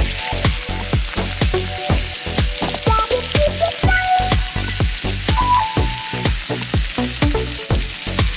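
A stir-fry of meat and vegetables sizzling and crackling in a pan as it is stirred with a spatula, over background music with a steady electronic beat of about three thuds a second.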